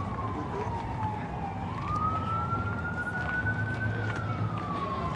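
Emergency vehicle siren wailing, its pitch slowly rising and falling about once every four to five seconds, over steady outdoor background noise.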